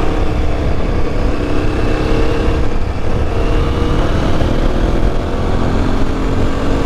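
Aprilia Tuareg 660's parallel-twin engine running under way at a steady cruise, its note shifting a little in pitch, over heavy low wind rumble on the microphone.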